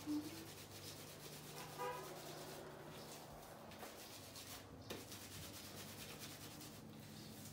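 Hands massaging colour-depositing shampoo through wet hair: a faint, soft rubbing and squishing, with brief pitched sounds at the start and about two seconds in.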